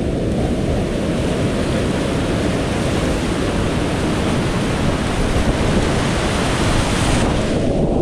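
Rushing whitewater of a big river rapid at high flow, heard from right on the kayak: a loud, steady roar of churning water and splashing against the boat. About seven seconds in, the sound turns dull as a wave washes over the camera.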